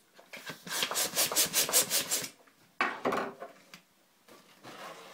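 Hand pump inflating an 8-inch latex balloon: a quick run of rasping air strokes, about four or five a second, for roughly two seconds. A shorter burst of rubbing follows about a second later.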